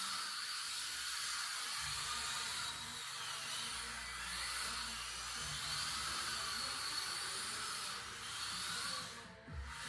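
Small electric motors of Mini-Z MRD RC drift cars whining as they are driven around the track, the pitch wavering up and down with the throttle. The sound briefly drops away near the end.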